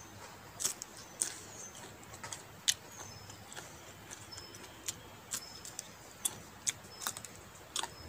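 Close-up chewing and lip-smacking of a mouthful of green bean, heard as irregular sharp mouth clicks about one to two a second.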